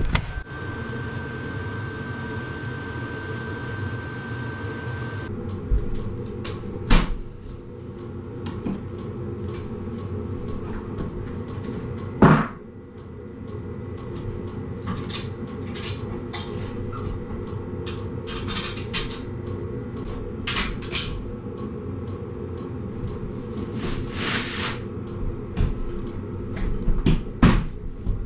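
Knocks and clatters of things being handled and cabinet doors opening and closing, the loudest about 12 seconds in, over a steady low hum.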